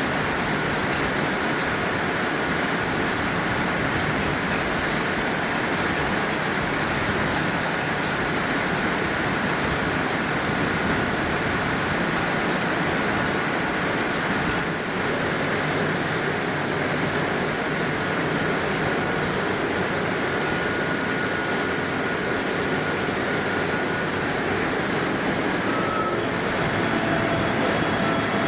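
Heavy rain falling steadily, with a faint steady whine from the standing ET 423 electric multiple unit. Near the end, new electric whining tones set in as the train starts to pull away.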